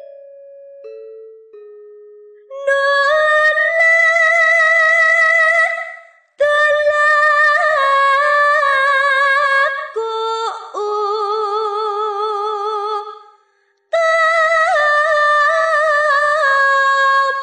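Solo female voice singing a slow Javanese sinom melody with no accompaniment, holding long notes with a wavering vibrato. It comes in four phrases separated by short breaks, after a few faint notes at the start.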